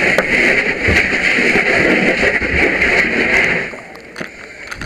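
Fire hose nozzle opened and flowing water, a steady hiss of spray with splashing, shut off sharply a little before the end.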